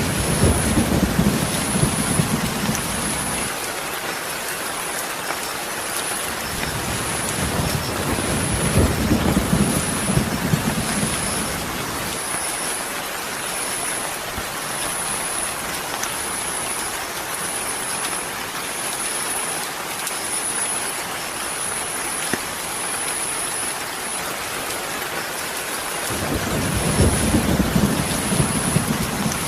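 Steady rain hiss. Deep rumbling swells come in three times: at the start, about a third of the way in, and near the end.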